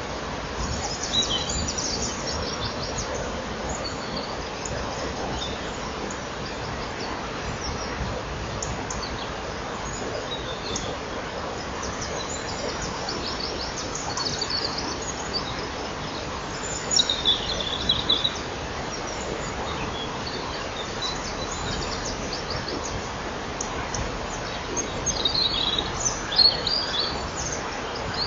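Dawn chorus of songbirds led by Eurasian wren and European robin, heard as several bursts of high, rapid song over a steady background hiss. The loudest phrases come about 17 seconds in and again near the end.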